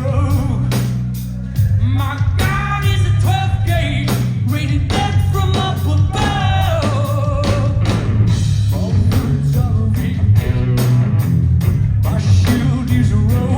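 Live rock band playing loud and steady, with heavy bass, steady drum hits and guitar under a male lead vocal singing. The band drops back briefly about a second in, then comes in hard again.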